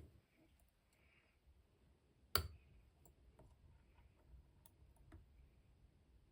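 Faint clicks and ticks of a lock pick and tension wrench working the pins of a Master Lock No. 150 padlock, with one sharp click about two and a half seconds in.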